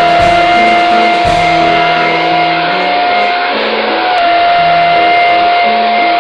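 Small handheld battery-powered whisk or frother running in a tiny cup of liquid: a steady high whine that wavers briefly about three and a half seconds in. Background music plays underneath.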